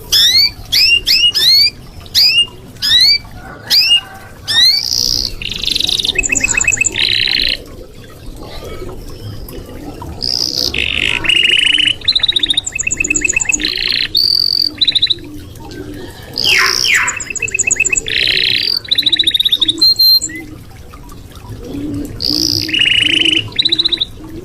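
Red canary singing a long, varied song. It opens with a series of rising whistled sweeps, about two a second, then moves into fast trills and buzzy rolls, with short pauses between phrases.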